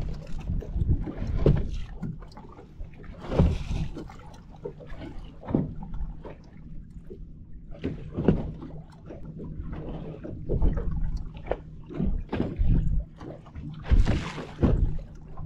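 Fishing boat on open water: water slapping against the hull in irregular thuds and splashes, over a steady low hum.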